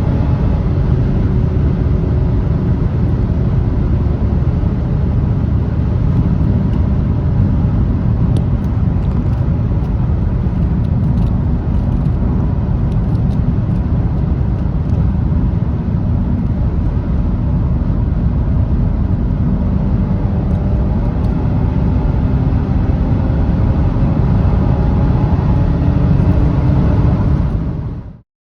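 Audi S4's supercharged 3.0-litre V6 under way at high speed, a steady heavy rumble of engine, road and wind noise with the engine note slowly climbing in stretches. The sound cuts off abruptly near the end.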